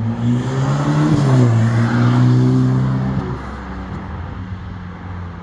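Supercar engine accelerating hard past, its note rising about a second in and then holding, before fading as the car pulls away about three seconds in.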